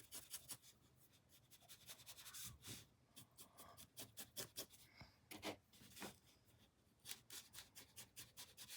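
Paintbrush working paint onto a canvas: faint, quick strokes and dabs, several a second, in short runs with brief pauses.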